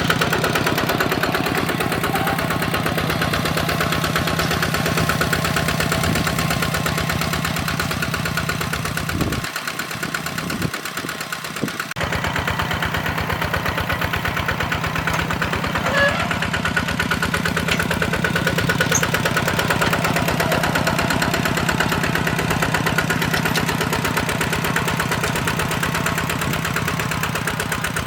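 Diesel engine of a walk-behind hand tractor running steadily with a rapid, even firing beat.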